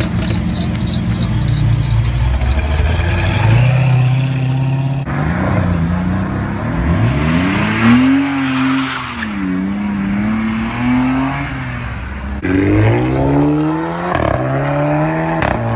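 Car engines revving and accelerating in a few short cuts, the engine pitch climbing sharply as each car pulls away.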